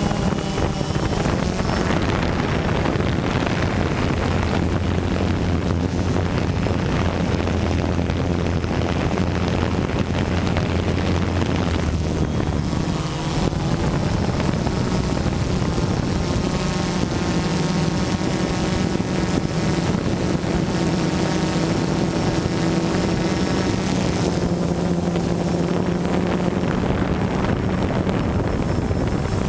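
Multirotor drone's electric motors and propellers whirring steadily close to the onboard camera's microphone, with wind noise over it. The pitch of the hum shifts about halfway through.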